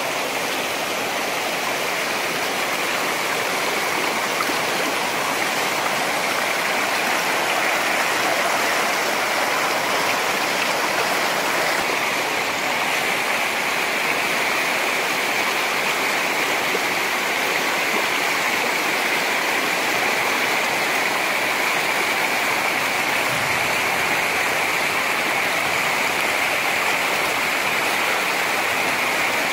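Muddy river swollen by heavy rain, its floodwater rushing steadily over rocks.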